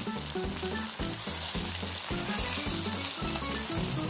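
Bread slices topped with a vegetable and cream (malai) paste sizzling steadily, face down on a hot tawa. They are frying in the ghee that the cream releases as it heats.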